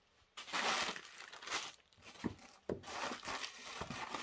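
Plastic air-cushion packing crinkling and rustling in irregular bursts as it is handled and pulled out of a cardboard shipping box, with a couple of light knocks in the middle.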